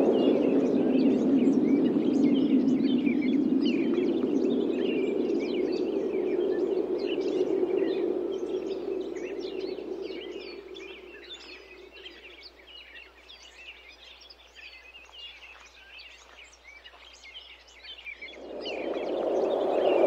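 Wind blowing, dying away about halfway through and rising again near the end, with many small birds chirping throughout.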